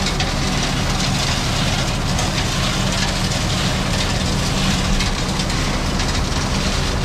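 Plow truck's hydraulic salt spreader running: the conveyor carries rock salt off the back of the truck and pours it in a steady stream through the spreader chute. Over this runs the steady hum of the truck's engine and hydraulics.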